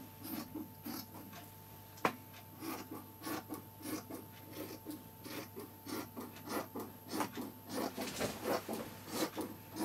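Large tailor's shears cutting through cloth: a run of short crunching snips, a few a second and coming faster in the second half, with one sharp click about two seconds in.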